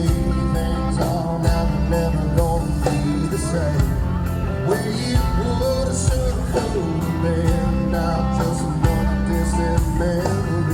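Live rock-and-country band playing an instrumental passage: a pitched lead line with bending notes over bass and a steady drum beat.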